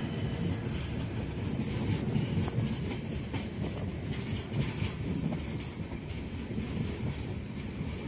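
Passenger train running on the rails: a steady rumble of wheels with faint scattered clicks, recorded from the train while it runs close alongside another train's coaches.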